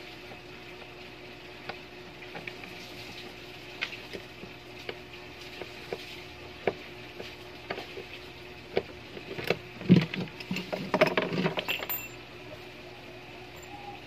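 Hand tools working at a washing machine's gear case: scattered metal clicks and taps, then a burst of louder knocking and rattling about ten seconds in, over a faint steady hum.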